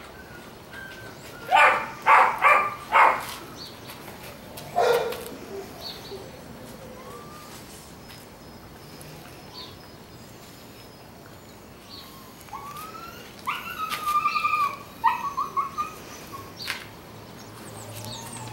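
Dobermann puppy barking: four sharp barks in quick succession about a second and a half in, and another about five seconds in. Later, a string of short high-pitched yelps and whines comes between about thirteen and fifteen seconds.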